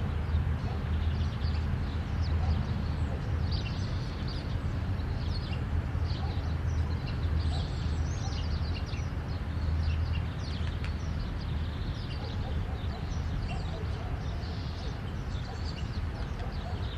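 Steady rumble of highway traffic, with many small birds chirping and trilling over it throughout.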